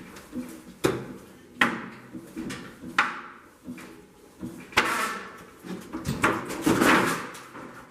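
A series of knocks and clanks, about five sharp ones spaced irregularly with smaller ones between, each ringing briefly.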